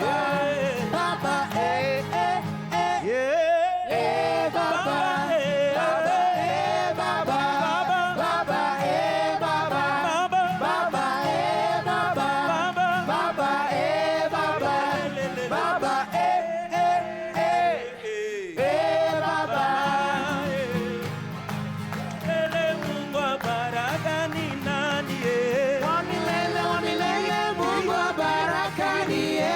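Swahili gospel worship song sung live by a small vocal group, several voices singing together in harmony over a steady musical accompaniment.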